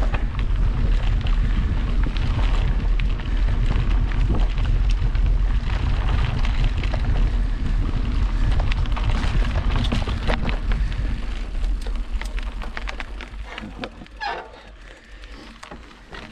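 Wind rumbling on the microphone of a mountain bike rider's camera, with the bike clattering and rattling over the forest trail. It fades away after about twelve seconds.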